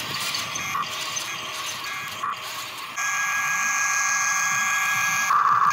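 Small electric motors and plastic gears of a remote-control toy excavator whining with a steady, high-pitched tone that steps up louder about three seconds in.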